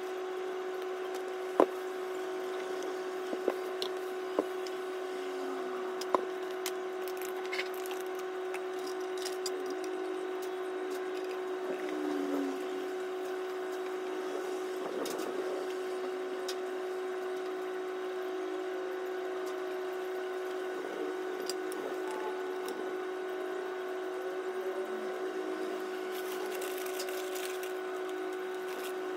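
Craft materials being set down and handled on a tabletop: a few sharp taps in the first several seconds, then soft rustling and handling, over a steady hum.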